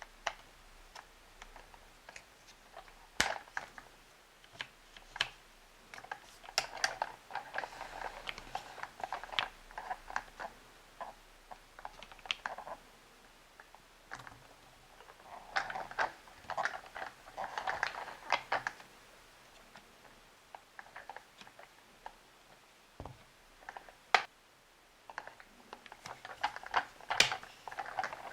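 Plastic parts of a Play-Doh Buster the Power Crane toy playset being handled, giving scattered clicks, taps and light rattles in several bursts, with a couple of sharper knocks.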